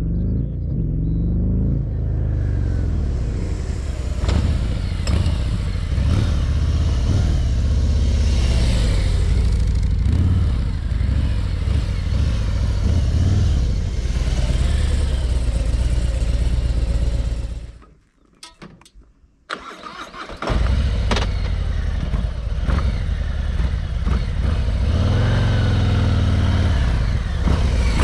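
Harley-Davidson Ultra Limited's V-twin engine running at low revs as the touring motorcycle rides slowly by close at hand. The sound drops out almost completely for about two seconds roughly two-thirds of the way through, then returns.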